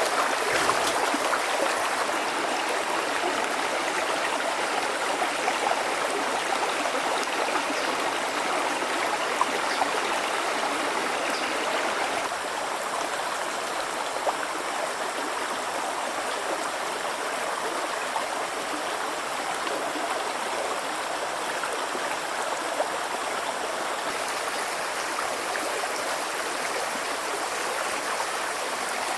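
Steady running water, like a flowing stream, with a few faint ticks; it drops slightly in level about twelve seconds in.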